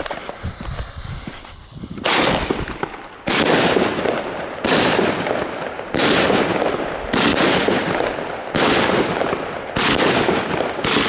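A 25 mm Xplode Knuckles fireworks battery firing its shots one after another, eight in a row about a second apart, starting about two seconds in. Each shot goes off sharply and trails off before the next one.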